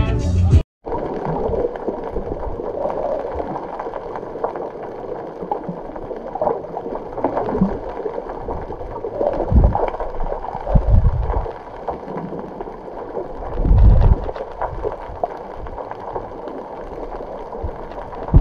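Water washing and splashing against a moving boat's hull, a steady noisy rush with a few short low thumps near the middle.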